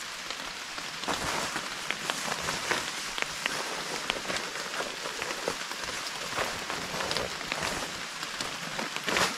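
Steady rain falling on the forest, with many small drop ticks. Over it, the plastic-coated fabric of a rain poncho rustles and flaps in uneven swells as it is pulled on over the head and settled.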